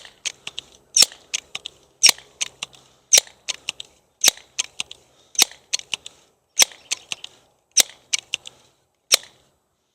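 Pellet pistol fired in a quick string: about nine sharp cracks roughly a second apart, each followed by a few smaller clicks.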